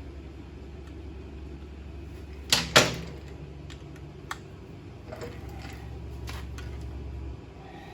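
Two sharp metal knocks about two and a half seconds in, then scattered light tool clicks, as a stuck fastener on a Ducati Pantah engine is worked loose. A steady low hum underneath stops shortly before the end.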